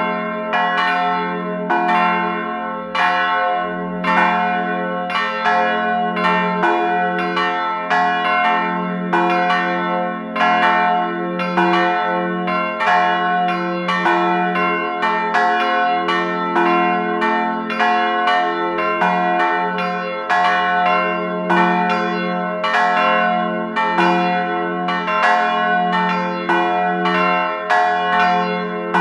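A run of bells struck in steady succession, about one and a half strokes a second, each stroke ringing on under the next.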